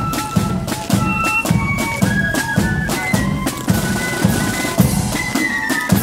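Marching flute band playing: flutes carrying a high melody over side drums and a bass drum beating a steady march rhythm of about two beats a second.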